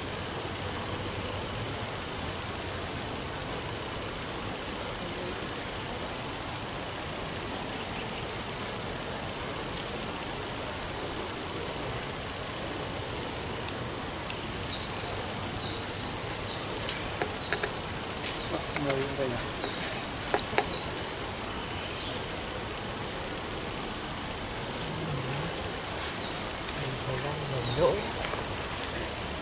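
Chorus of insects in the riverside vegetation, a steady high-pitched buzz that does not let up. From about halfway in, short faint chirps repeat over it.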